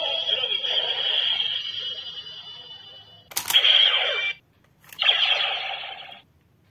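DX Decadriver toy belt playing electronic sound effects through its small built-in speaker. A tone fades away, then about halfway through comes a click and a short electronic burst. A second click and burst follow a second and a half later, each burst cutting off suddenly.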